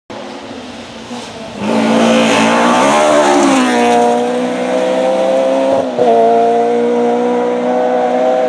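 Rally-prepared Volkswagen Polo engine pulling hard on a gravel stage. The note comes in loud after about a second and a half and rises, with a short break about six seconds in at an upshift, then climbs again.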